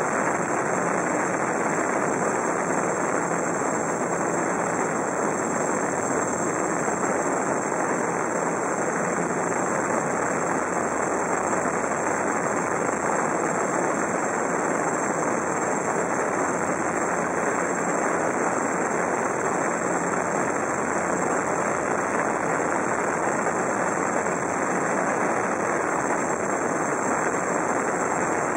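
GAUI QuadFlyer 330X quadcopter's four motors and propellers running steadily, heard from the camera on board: an even whirring rush with a thin high whine over it.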